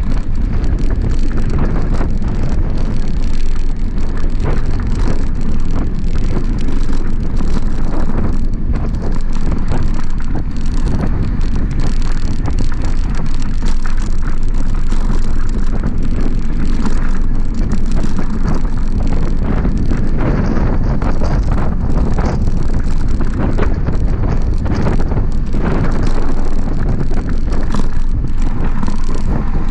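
Wind rushing over the microphone of a camera on a mountain bike riding downhill on a dirt fire road: a loud, steady low rush. Tyres roll over the packed dirt, and the bumps bring frequent small knocks and rattles.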